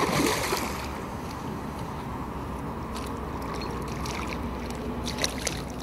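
A hooked carp thrashing at the surface in shallow water makes a splash right at the start. Water laps and sloshes as the fish is drawn over the landing net, with a few light clicks near the middle and end.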